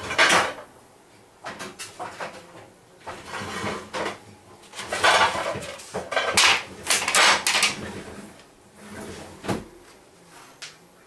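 Kitchen handling noises: a wooden rolling pin knocking on a wooden table as pie crust is rolled up on it, and a thin aluminium foil pie pan rattling as it is moved and set down. Short, irregular noises, one right at the start and a cluster around the middle.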